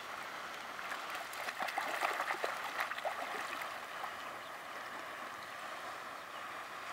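A dog splashing through shallow pond water and lunging in to swim, with a run of splashes about one and a half to three and a half seconds in, then a faint steady watery hiss.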